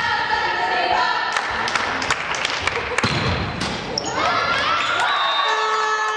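Volleyball rally on an indoor court. Sharp slaps of hands on the ball and thuds on the floor come in the middle, under shouting and chanting from spectators and players. About five and a half seconds in, a long steady note sets in.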